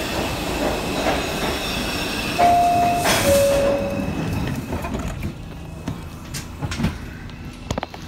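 New York City subway train pulling into the station and braking. Its rumble swells to a loud rush about three seconds in, with a steady whine that steps down in pitch. It then quiets, with a few clanks, as the train slows to a stop.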